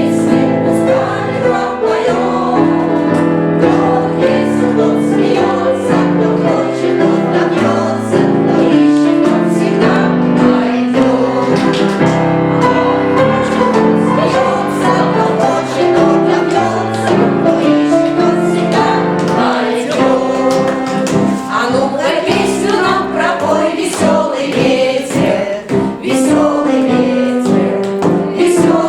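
Children's choir singing in unison and parts, accompanied by piano.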